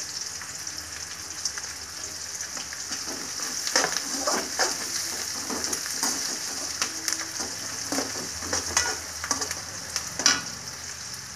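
Onion, peanut and roasted-gram tempering sizzling steadily in hot oil in a metal kadai. A spatula scrapes and clacks against the pan as it is stirred, mostly from about three seconds in.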